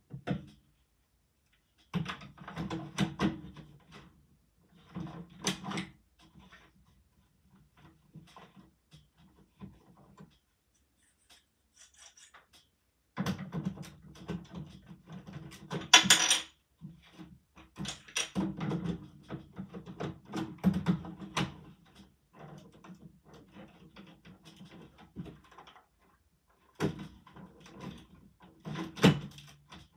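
Plastic Lego bricks being handled, slid and pressed together: clicks, scrapes and rattles in several bursts with quiet gaps between, the sharpest click about halfway through.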